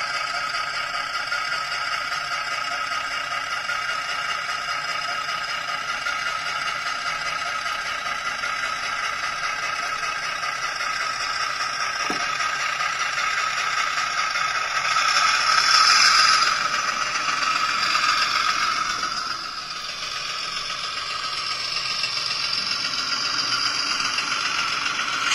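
N scale Rapido GMD-1a diesel locomotive's DCC sound decoder playing a diesel engine sound through its tiny speaker, thin and without bass, over the rattle of the model running on the track. The engine sound swells about fifteen seconds in, then settles.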